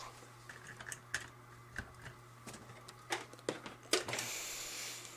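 Irregular light clicks and knocks of vacuum-cleaner power cords and plugs being handled and plugged in, with a brief rustle about four seconds in, over a faint steady low hum.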